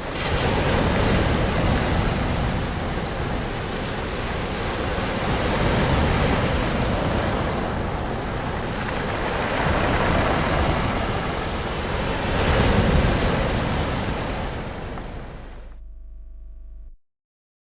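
Ocean surf: a steady rush of waves breaking and washing in, swelling and easing about every four seconds. Near the end it thins out and then cuts off abruptly to silence.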